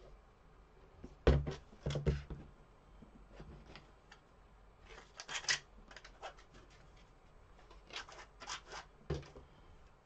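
Cotton-covered craft wire being bent and twisted together by hand: scratchy rubbing in short bursts, with a few dull knocks about a second in, at two seconds and near the end.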